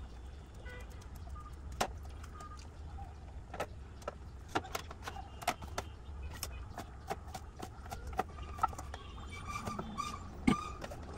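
Irregular sharp clicks and taps of kitchen food prep: kitchen scissors snipping, then a knife cutting on a chopping board near the end, over a low steady hum.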